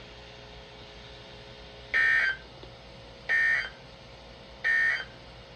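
NOAA Weather Radio EAS end-of-message signal: three short bursts of warbling two-tone digital data, evenly spaced about a second apart, marking the end of an alert broadcast.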